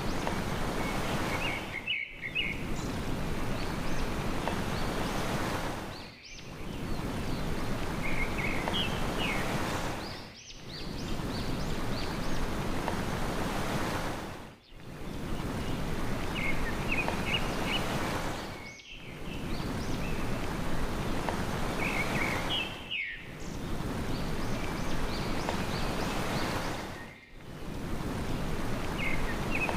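Steady wash of sea surf with small birds chirping in short phrases now and then. The surf dips briefly and regularly about every four seconds.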